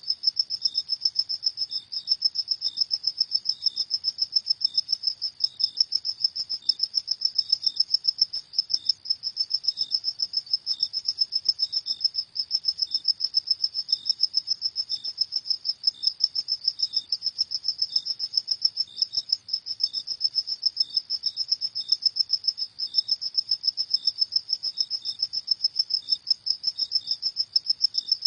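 Crickets chirping in a rapid, even pulse, high-pitched and continuous, with a second, lower chirp repeating at a slower beat.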